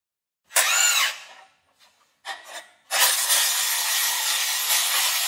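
Cordless impact wrench running a nut down on a grooved pipe coupling's bolt: a short burst about half a second in, two brief blips, then a steady run of about three seconds from about three seconds in, tightening the housing nuts toward metal-to-metal contact at the bolt pads.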